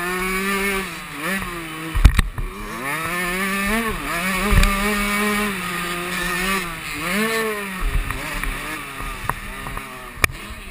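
Small two-stroke engine of a KTM 65 motocross bike, heard from the rider's helmet camera, revving up and falling back again and again as it is raced around the track. Sharp knocks as the bike lands off a jump, the loudest about two seconds in, with a few more later.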